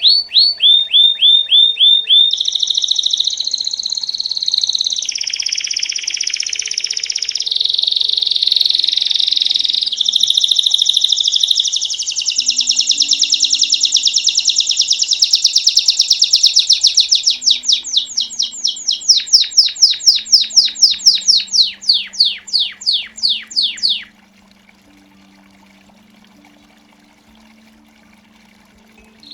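Belgian canary singing a long song made of rapid trills: series of quickly repeated notes, each series changing pitch and speed every few seconds, in the bell-like 'campainha' style. The song stops about 24 seconds in, leaving a few seconds of pause before it starts again at the very end.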